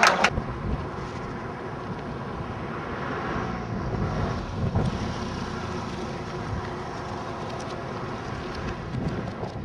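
Wind blowing across the camera microphone outdoors, a steady low rumble with a hiss above it.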